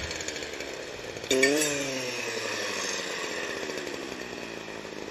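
Stihl clearing saw engine revving sharply about a second in, then its pitch slowly sinking as the throttle eases off, while brush is being cut.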